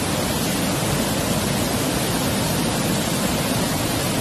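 Flash-flood torrent of muddy water rushing over rocks, a steady, unbroken rush.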